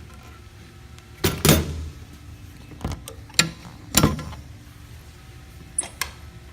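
Metal clanks and knocks from a steel utility-bed compartment door and its latches being worked: two loud bangs with a short ring about a second in, more around three to four seconds in, and a lighter pair of clicks near the end.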